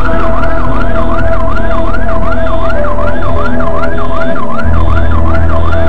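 Emergency vehicle siren in a fast yelp, its pitch sweeping up and down about three times a second, over a steady low hum.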